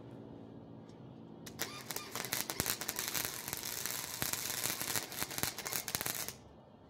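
Wire-feed welder arc crackling and sputtering as a bead is run on a steel bar, starting about a second and a half in and cutting off sharply near the end, over a low steady hum. The wire feed is set above 6, which the welder then judges too fast.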